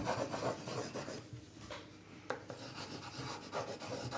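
Pencil rubbing back and forth on paper as an area of a picture is coloured in, a scratchy rasping with a few light taps.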